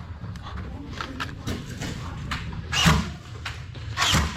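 Two sharp knocks about a second apart in the second half, with lighter clicks and rustling in between: the sounds of a Nerf foam-dart firefight, as blasters fire and darts strike cover.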